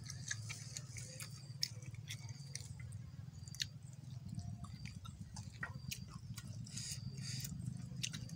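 A person chewing and eating grilled chicken with chili sambal by hand, with many short irregular mouth clicks, over a steady low hum.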